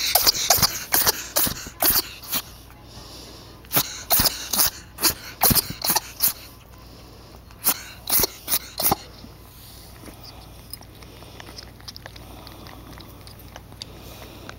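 A ferret having a sneezing attack: many short, sharp sneezes in quick succession, coming in three fits over about the first nine seconds, after which only faint small ticks remain.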